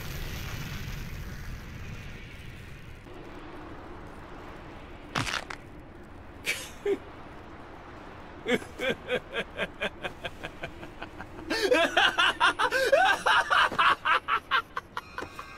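A man's deep voice laughing: short chuckles start about halfway through and build into loud, rapid laughter near the end. In the first seconds a fading rumble and hiss dies away.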